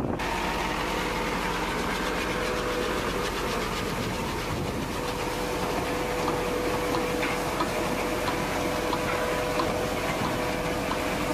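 Tractor engine running steadily under load with the rattle of a tractor-drawn crop digger lifting plants from the soil, a thin steady whine and small ticks running through it.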